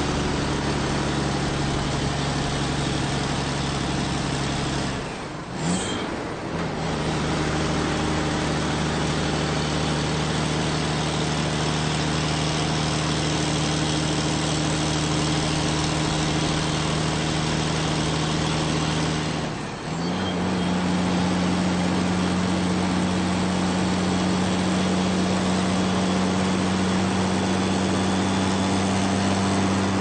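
Large truck's engine running steadily at a constant pitch while driving. The note breaks off briefly twice, about five seconds in and about twenty seconds in, and comes back slightly higher each time.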